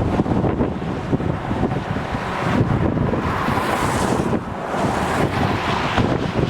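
Gusty wind buffeting the microphone: a loud, uneven rush of noise that swells and dips throughout.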